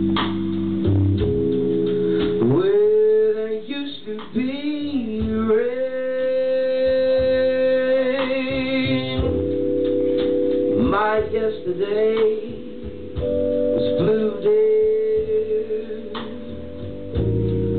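Live band music: a slow, wavering vocal line with long held notes over sustained keyboard and guitar chords.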